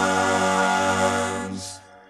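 A 1971 rock recording playing: a long held chord with voices singing in harmony, fading away near the end.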